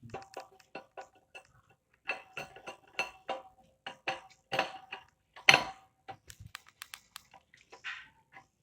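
Irregular series of sharp clicks and light metallic clinks from tools and objects being handled on a work table, with one louder knock about five and a half seconds in.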